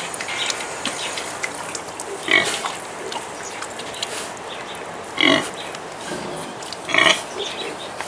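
A boar grunting three times, short grunts a couple of seconds apart, with faint snuffling between them.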